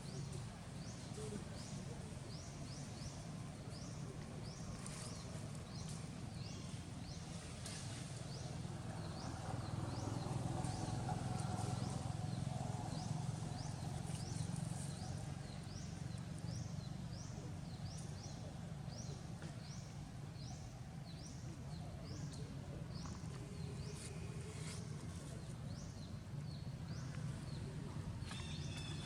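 Outdoor ambience: a steady low rumble under a short, high chirp repeated over and over, from a bird or insect. The rumble swells a little about ten seconds in.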